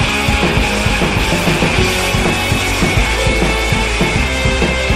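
Background rock music with a driving drum beat and distorted guitar.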